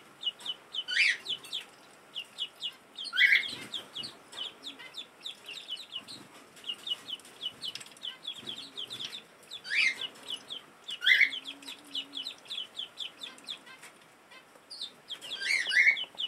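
Several ducklings peeping: a steady run of short high peeps, several a second, with a few louder, longer calls now and then.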